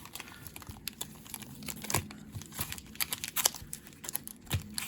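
Crinkling and rustling of the contents of a Pokémon trading-card Elite Trainer Box being handled, with many small, irregular clicks and taps of card and packaging.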